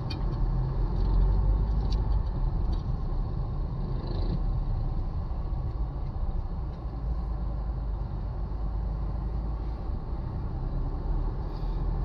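Heavy road traffic: a steady low rumble of vehicle engines, with a few short clicks in the first few seconds.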